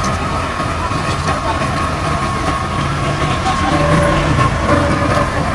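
Heavy road-construction machinery running, a steady mechanical din with a sustained high whine over it.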